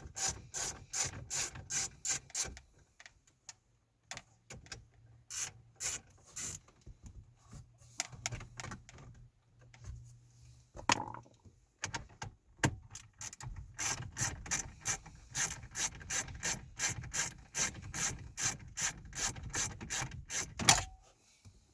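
Ratchet clicking in quick, even runs of about three or four clicks a second, backing out the 7 mm screws that hold a truck's dash screen and CD player. There are short pauses between screws and an occasional louder knock.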